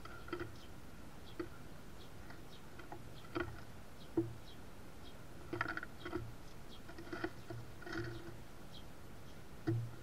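Sparrows pecking and cracking sunflower seeds on a wooden platform feeder: irregular sharp taps and clicks of beaks and seed shells against the wood.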